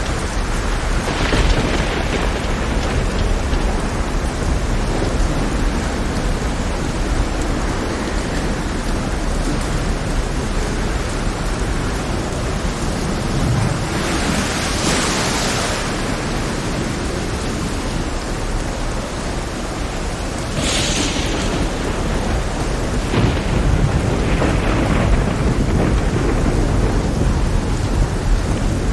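Heavy rain falling steadily over a deep rumble of thunder. Louder surges swell up about halfway through and several more times near the end.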